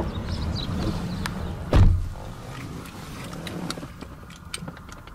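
Toyota Crown S150's driver's door pulled shut with one heavy, deep thud about two seconds in. After it the outside noise is muffled, with a few small clicks.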